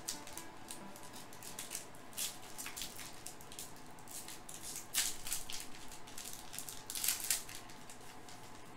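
Foil wrapper of a pack of baseball cards crinkling and tearing as it is opened by hand, in scattered crackles with louder bursts about five and seven seconds in.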